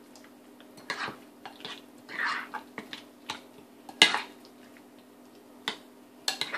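A spoon knocking and scraping against a glass bowl as chicken pieces are stirred into a thick yogurt-and-herb marinade: irregular clinks with short wet smears between them, the loudest knock about four seconds in.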